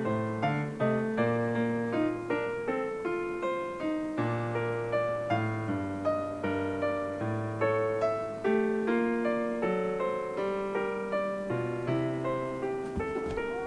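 Background piano music: a steady flow of struck notes, each fading after it is played.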